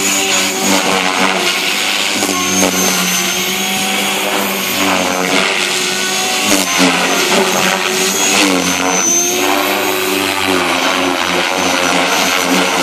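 Align T-Rex 500X electric RC helicopter in flight: the brushless motor and rotor blades whine continuously, the pitch rising and falling again and again as it manoeuvres.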